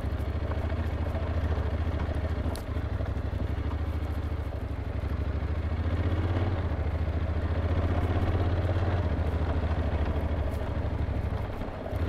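Honda NC750X parallel-twin engine running steadily as the motorcycle rides along. There is a brief dip about two and a half seconds in, and the engine gets a little louder from around six seconds in.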